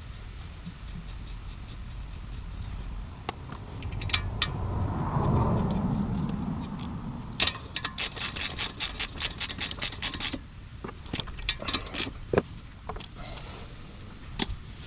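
Hand ratchet wrench clicking in a fast run of about eight to ten clicks a second, then a few single clicks, as a bolt on the WRX's front brake caliper is turned during reassembly. Before it comes a stretch of scraping and handling of metal parts.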